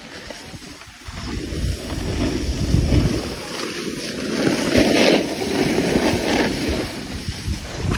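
Wind rushing over the microphone of a phone carried by a moving snowboarder, with the scrape of a snowboard over hard-packed groomed snow. The noise is loud and uneven and swells about a second in.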